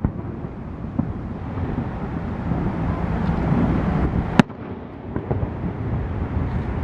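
Aerial fireworks bursting: a few sharp bangs, the loudest about four and a half seconds in, with smaller pops around five seconds, over steady low noise.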